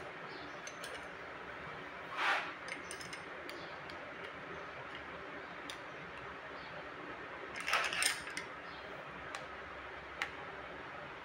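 Light metallic clicks from a screwdriver, ring spanner and feeler gauge working a rocker-arm adjusting screw and locknut while setting valve clearance on a Kubota V1505 four-cylinder diesel, with two louder brief scraping sounds about two seconds in and about eight seconds in.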